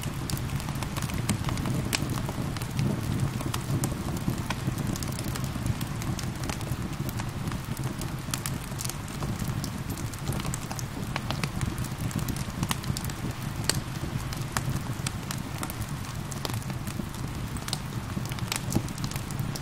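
Wood fire in a fireplace crackling, with frequent irregular sharp pops over a steady low rumble, mixed with gentle rain.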